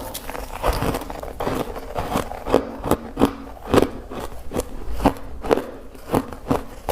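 Ice being bitten and crunched between the teeth close to the microphone: a quick, irregular series of sharp crunches.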